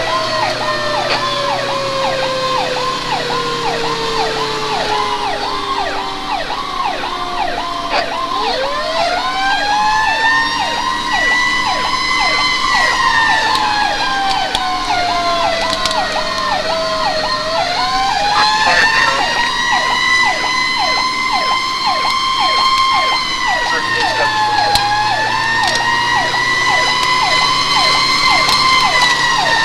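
Fire engine responding with sirens on. A fast electronic yelp repeats about three times a second over a second siren that winds down at first, climbs steeply about a quarter of the way in, then rises and falls in long slow sweeps. The truck's engine drones low underneath.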